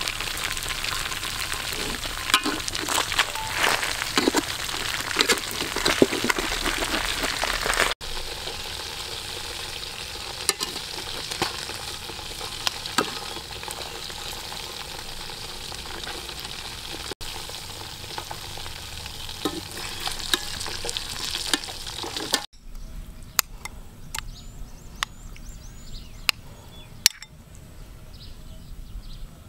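Stingray pieces deep-frying in a wok of hot oil, a steady sizzle full of sharp spitting crackles. The sizzle drops in level about eight seconds in, and later gives way to a much quieter background with scattered sharp clicks.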